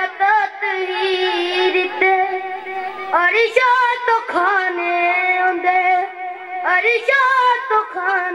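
A boy's solo singing voice chanting a Shia mourning lament, unaccompanied, in long held notes that waver, with short breaks between phrases.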